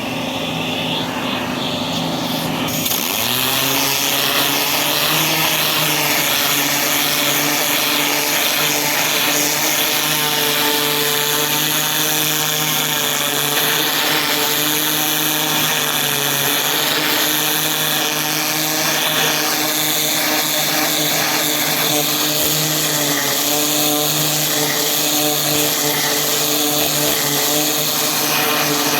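Cleaning-equipment motor running steadily at full power, with a loud rushing hiss of air joining about three seconds in.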